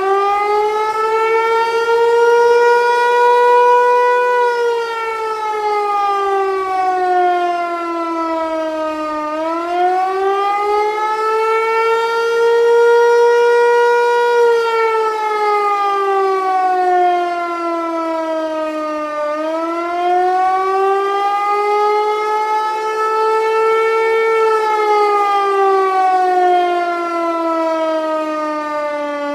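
Federal Signal Eclipse 8 outdoor warning siren sounding the attack signal, its pitch rising and falling in slow waves about every ten seconds. Each rise peaks a little lower than the last, which the recordist puts down to a battery problem.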